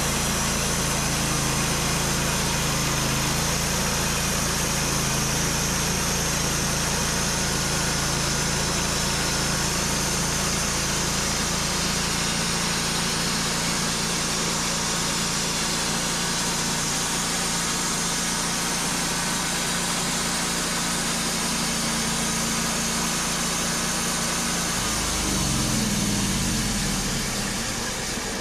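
Sawmill's engine running steadily under load while the blade cuts through a black oak log, then winding down near the end of the cut.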